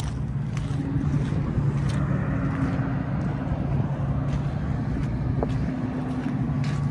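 Steady low hum of an idling engine, with a few footsteps crunching on gravel.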